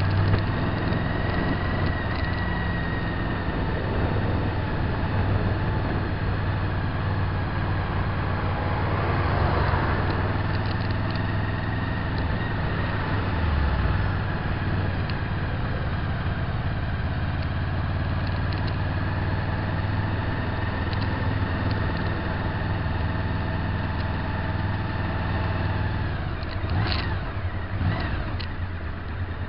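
A vehicle's engine running steadily with road and wind noise, heard from the moving vehicle in town traffic. A few short knocks or clicks come near the end.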